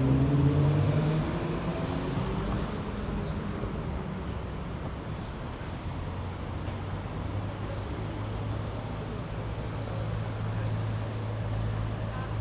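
City street traffic: a vehicle's engine passes close by near the start, then a steady low engine hum sets in about six seconds in, over a continuous wash of road noise.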